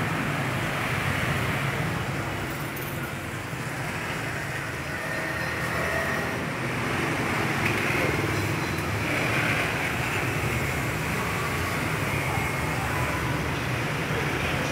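Steady road traffic noise, even and continuous, with no distinct knocks or clatters.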